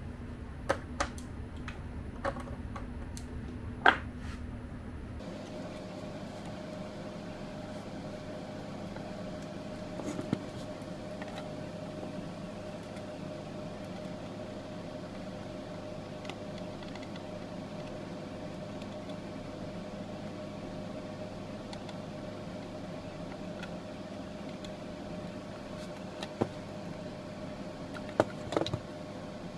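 Steady hum of running electrical equipment with a small fan. About five seconds in, the low rumble stops and a higher steady tone carries on. Sharp clicks and taps come a few times near the start, once around the middle and several times near the end, as cables and connectors are handled.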